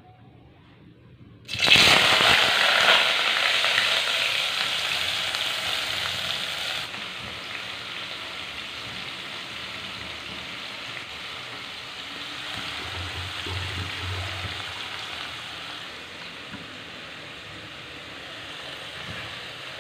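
Wet chopped asparagus dropped into hot oil in a steel karahi: a sudden loud sizzle starts about a second and a half in, then gradually dies down to a steady, quieter frying sizzle.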